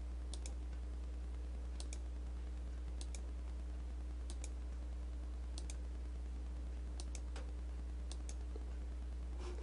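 Computer mouse clicking about once a second, each click a quick double tick, as a document is paged through on screen. A low, steady electrical hum lies underneath.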